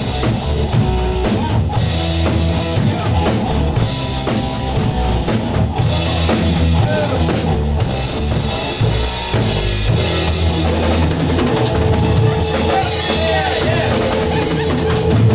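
Live rock music led by two acoustic drum kits playing a beat together, with cymbals and a low bass line underneath.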